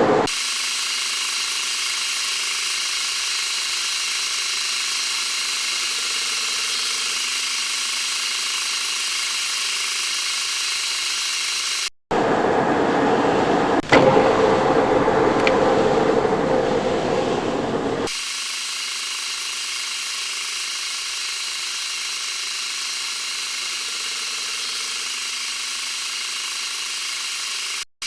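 Metal lathe running steadily with a machine hum made of several fixed tones, in a few edited clips. In the middle clip it runs louder and fuller, with a sharp click partway through.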